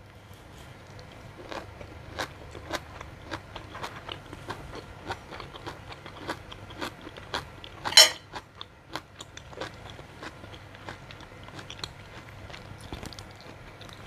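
A person chewing mouthfuls of blanched sea kale leaves with chilli paste, with many small crunching clicks throughout and one louder click about eight seconds in.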